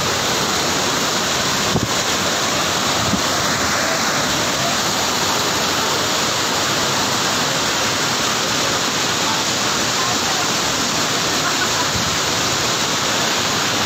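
Waterfall and fast stream water rushing over rocks, a loud steady even rush. A brief tap about two seconds in.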